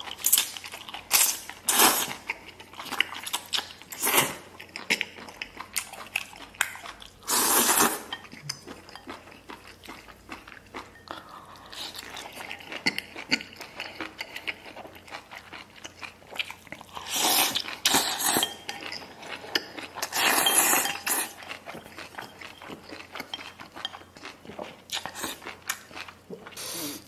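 A person slurping and chewing spicy duck intestines eaten with chopsticks: a run of short sudden slurps and bites with three longer slurps spread through, and light clinks of chopsticks on a ceramic bowl.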